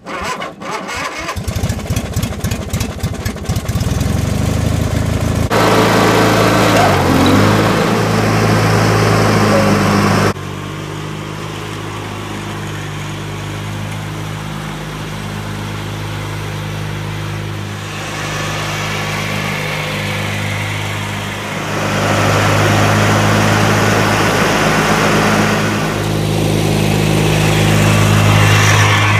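Lawn mower engine catching right at the start after being cranked by jumpering the ignition, since the key is broken. It then runs steadily and picks up over the first few seconds. Its sound drops suddenly about ten seconds in and grows louder again about twenty-two seconds in.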